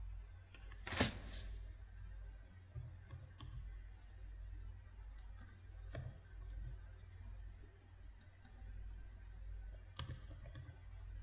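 Sparse computer mouse and keyboard clicks, several in quick pairs like double-clicks, over a low steady hum. A louder knock comes about a second in.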